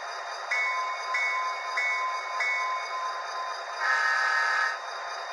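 Model locomotive sound from an HO-scale Union Pacific rotary snowplow's Tsunami sound decoder: a locomotive bell rings four strokes about two-thirds of a second apart. About four seconds in comes one short, louder horn blast, over a steady background hiss.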